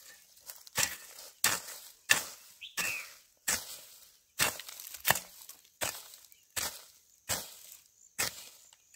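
Steady rhythmic chopping with a blade, about a dozen sharp strokes, one roughly every three-quarters of a second, each trailing off briefly.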